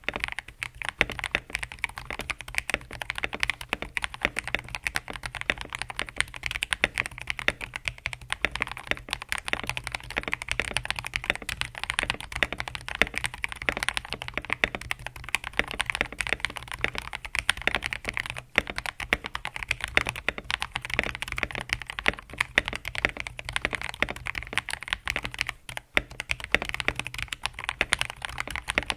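Fast, continuous typing on a TM680 mechanical keyboard with lubed KTT Strawberry linear switches and POM jelly keycaps. The board is tape-modded and foam-filled. There are dense key strokes with two brief pauses, one just past the middle and one near the end.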